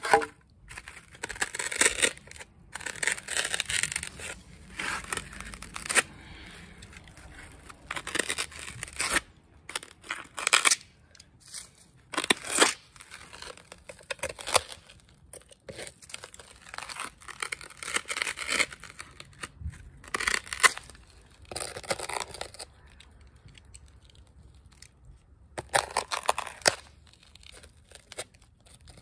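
Knife slicing and scraping through a foam block in irregular strokes, some short and some drawn out, while the shape is trimmed.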